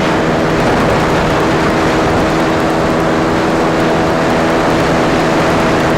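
Dinamo Renegada 250 motorcycle's engine running at a steady cruising speed, with heavy wind rush over the microphone.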